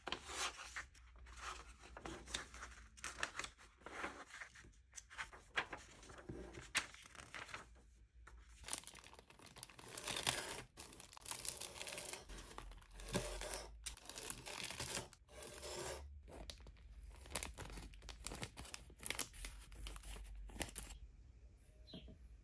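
Paper instruction-booklet pages rustling as they are turned. Then, from about eight seconds in, a clear plastic bag around plastic model-kit sprues crinkles and tears as it is slit open with a craft knife and handled.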